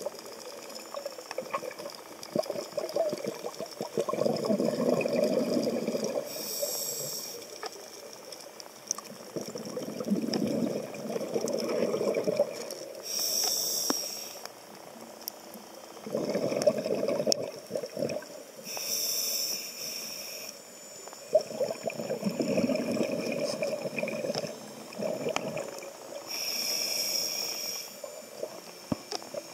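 Scuba regulator breathing heard underwater: a short hiss with each inhale alternates with a longer burst of bubbling as each exhale vents, repeating about every six to seven seconds.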